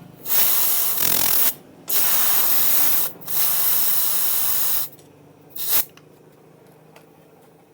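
Compressed air hissing out of a motorcycle tubeless tyre's valve in three bursts of about a second each, then one short burst. The tyre is being let down from the high pressure used to seat its bead.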